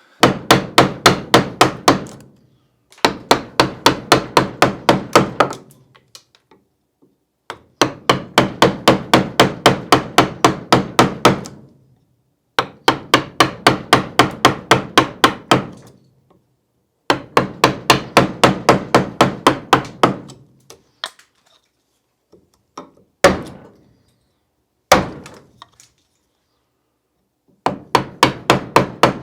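Wooden carving mallet tapping a gouge into tough wood to cut back the forehead of a carved face: quick, even strikes about five a second, in runs of two to four seconds with short pauses, and two single blows in the later part.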